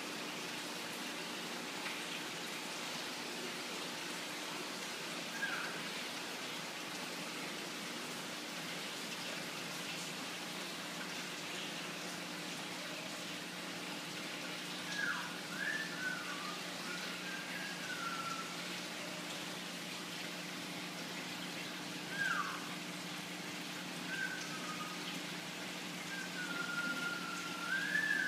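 Steady background hiss with a low hum, broken by short whistled chirps once about five seconds in and several more times in the second half.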